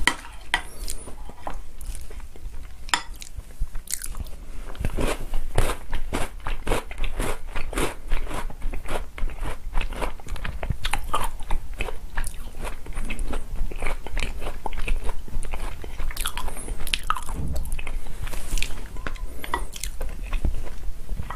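Close-miked chewing and crunching of chocolate cookies soaked in chocolate milk, a quick, uneven run of crisp crunches.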